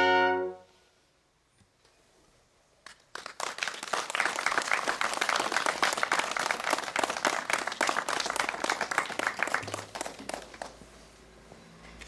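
A brass band's held chord cuts off about half a second in; after a short quiet, a crowd applauds with many hands clapping for several seconds, fading out near the end.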